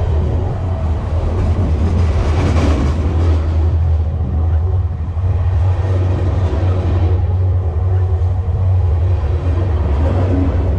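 Freight train cars rolling past close to the rails: a steady low hum with wheel-on-rail rumble, a little brighter about two seconds in.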